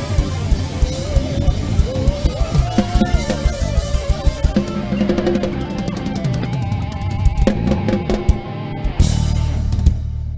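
Live band playing an instrumental ending through a concert PA system: drum kit driving a steady beat with fast rolls, over bass and guitar, ending on a big final hit with a held low bass note ringing out.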